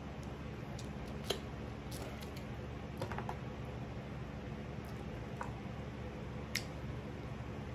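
A person eating brown stew chicken with her fingers: a few scattered wet smacks and small chewing clicks over a steady low room hum.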